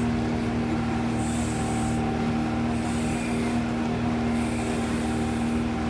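Pontoon boat's outboard motor running steadily under way, an even, unchanging hum over the rush of water and wind.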